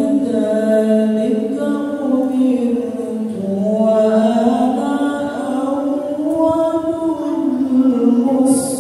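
A male qari reciting the Qur'an in the melodious tilawah style: one unaccompanied voice holds long, ornamented phrases that rise and fall in pitch.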